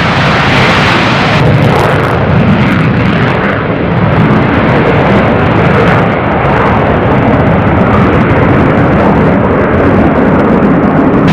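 Fighter jet engine noise, loud and steady; the hiss in the high end drops away about a second and a half in.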